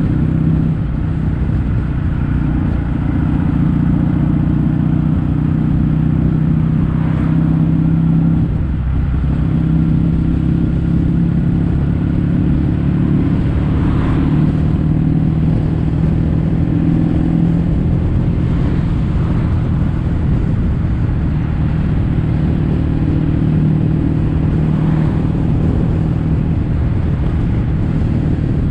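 Kawasaki W800's air-cooled parallel-twin engine running steadily through stainless-steel Caburton-style silencers while riding, its exhaust note holding an even pitch.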